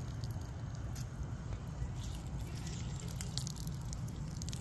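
A lemon squeezed by hand, its juice dripping and splashing onto grilled salmon and shrimp, with scattered small clicks and crackles, over a steady low rumble.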